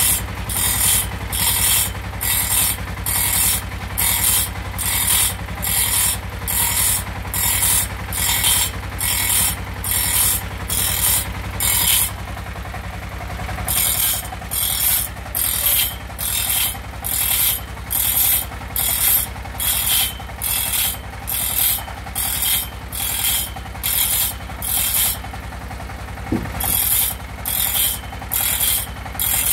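A homemade grinder, a small electric motor spinning an abrasive wheel, sharpening a sawmill band saw blade one tooth at a time. Each tooth gives a short rasping grind, about one and a half a second, over the steady hum of the motor. The grinding pauses twice for a second or two while the blade is repositioned.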